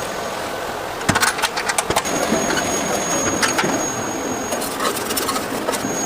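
Crispy fried food crunching. A quick run of sharp crackles comes about a second in, with scattered crackles later, over a steady hiss.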